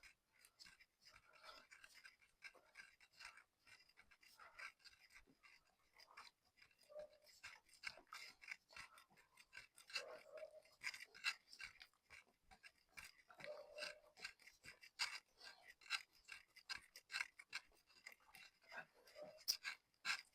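Faint, rapid scratchy scrubbing on a motorcycle drive chain being cleaned along its centre, with many irregular small clicks and rasps.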